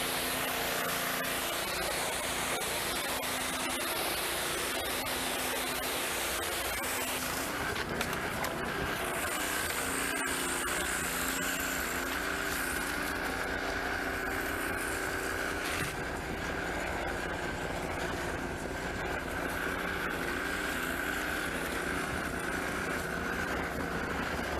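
Gas-engine pressure washer running steadily, its engine hum under a constant hiss of spray, with a steady whine joining about a third of the way through.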